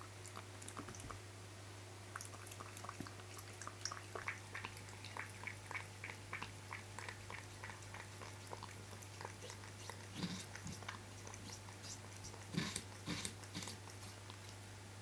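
Sphynx cat lapping water with its tongue, soft wet clicks about three times a second, with a few louder sounds about ten seconds in and again near the end.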